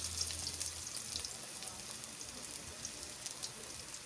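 Minced garlic sizzling in hot cooking oil in a wok, a steady hiss with scattered crackles that eases off slightly over the first second or so as the garlic begins to fry.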